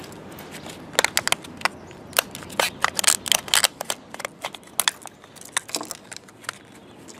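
Scissors cutting through a stiff clear plastic blister pack, the plastic crackling and snapping in irregular clicks as it is cut and pulled apart.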